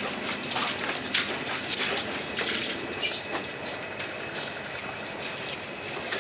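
A knife blade scraping along the side of a large trevally, in short, irregular strokes, with one louder stroke about three seconds in.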